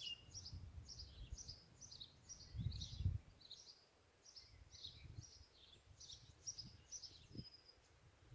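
Wild birds singing faintly: a steady run of short chirped notes, about two a second, over a low outdoor rumble that swells about three seconds in.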